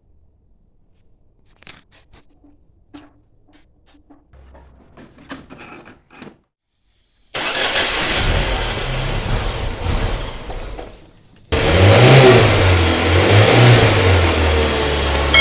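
Peugeot XU7 four-cylinder petrol engine running after repair, with the revs rising and falling in the second half. It is preceded by a few faint clicks and knocks and comes in abrupt segments.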